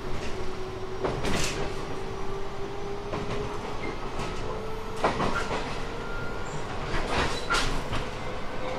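JR 719 series electric train running, its motor whine rising slowly and steadily in pitch as the train gathers speed. A few sharp clacks from the wheels over rail joints come about 1.5, 5 and 7 seconds in.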